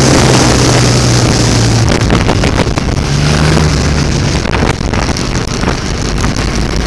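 Motorcycle engine heard from an onboard camera at speed, under heavy wind noise on the microphone. The engine note holds steady for about the first two seconds, then goes uneven through the bends, returning briefly at about three seconds.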